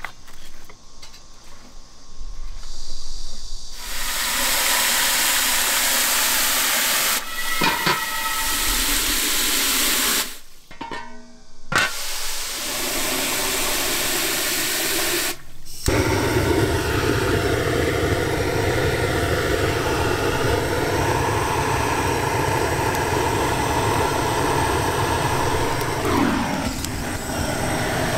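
Steady hissing and rushing of steam and fire from wood-fired cast-iron cauldrons, switching abruptly between a higher hiss and a deeper, lower rush.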